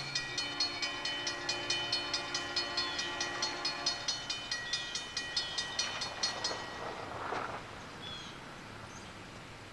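Railroad grade-crossing warning bell ringing in quick, even strokes, about two to three a second, while the crossing gates come down; it stops about six and a half seconds in. A steady held tone sounds under the bell for the first four seconds, and short bird chirps come near the end.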